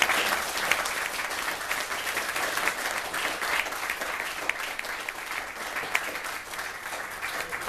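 An audience applauding, many hands clapping at a fairly steady level.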